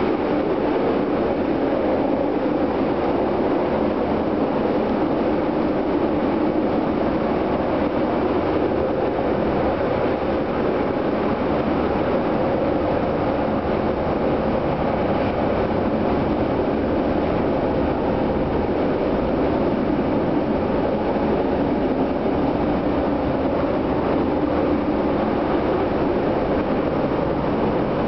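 Steady running noise heard inside a CTA 2200-series rapid transit car travelling at speed: the even rumble of the car's wheels and running gear on the rails, with no breaks or changes.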